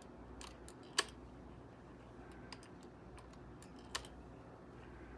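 Faint clicks of BBs being pressed one at a time through the loading gate of a Daisy Model 1894 lever-action BB gun, with a sharper click about a second in and another about four seconds in.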